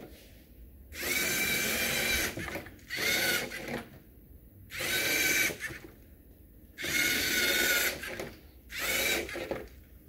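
LEGO Mindstorms NXT servo motors whirring, driving a small robot car in stop-and-go moves. There are five short runs of a steady high whine, each about a second long, with brief pauses between them.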